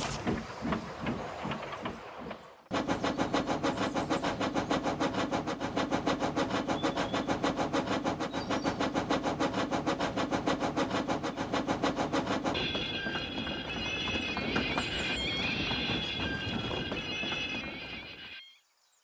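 Model steam locomotive sound effects: a fast, even chuffing with a rattle of wheels. About two-thirds through it gives way to a high, wavering tone over a quieter running sound, which fades out near the end.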